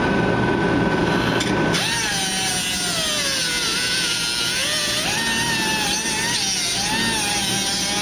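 A cutoff wheel whines steadily, then about two seconds in bites into the rusted sheet steel of a truck's rocker panel. From there it makes a harsh grinding, its whine dipping and recovering as the cut loads and eases.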